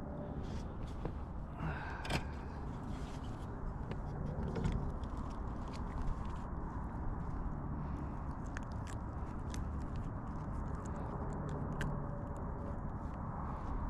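Hands unhooking a small trout in a kayak: scattered light clicks and scrapes of the hook, line and fish being handled, over a steady low rumble.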